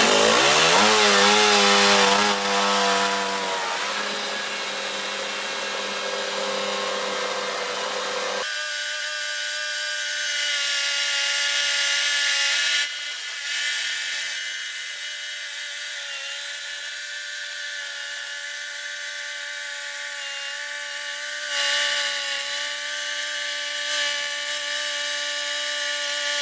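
Engine-driven sawmill cutting through a large spalted beech log: the motor's pitch rises over the first couple of seconds as it comes up to speed, then holds steady under the hiss of the blade in the wood. About eight seconds in the sound abruptly thins, losing its low end, and runs on steady.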